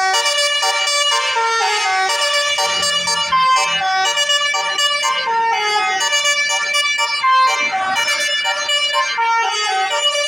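Indonesian bus telolet horn of the 'basuri' kind, playing a loud melody of stepping multi-note tones without a break.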